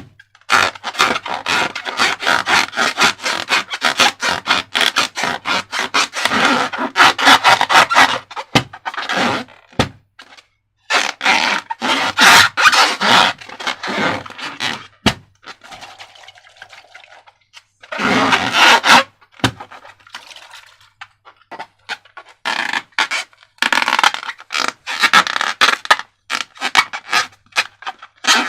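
Slime being squished and worked by hand: dense runs of sticky crackles, clicks and scrapes, with a couple of short pauses.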